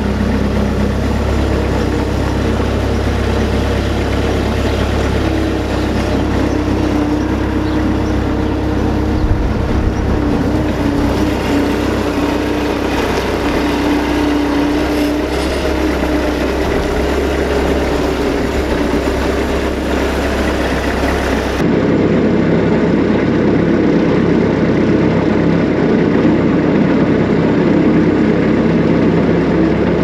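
Bobcat 773 skid-steer loader's diesel engine running steadily as the loader is driven, its engine note shifting a little with speed. About two-thirds in it is heard from inside the cab, a bit louder.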